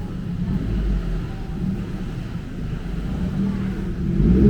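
Motor traffic: vehicle engines running close by, a low rumble that swells near the end.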